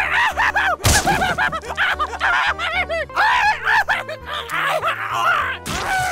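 High-pitched cartoon voice snickering in quick rising-and-falling chuckles over background music, with a sharp hit about a second in.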